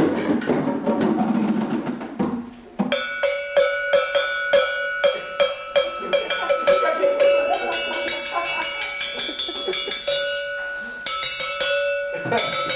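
Drum-circle percussion. Hand drums play for the first couple of seconds, then drop off briefly. A ringing metal percussion instrument then comes in, struck in a fast, even rhythm over hand drums, its bright bell-like tone sounding through the rest.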